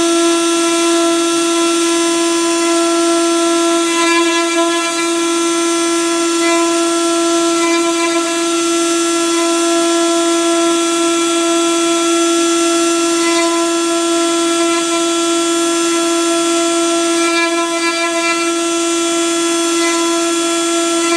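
CNC router spindle running at a steady high-pitched whine as its bit engraves a clear plastic sheet, the cutting sound shifting slightly a few times.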